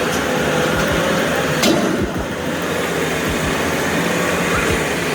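Heavy truck engine running steadily under load, with a single sharp knock about one and a half seconds in.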